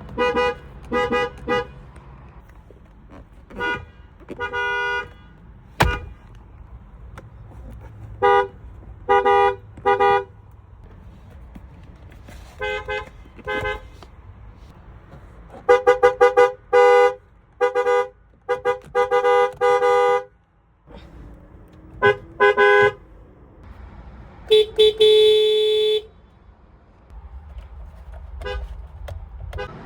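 Car horn honked over and over: single short toots, quick runs of several honks in a row, and one longer held blast about twenty-five seconds in.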